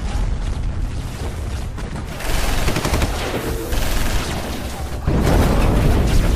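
Battle sound effects: rapid machine-gun fire mixed with explosions. It steps up louder about two seconds in and again about five seconds in.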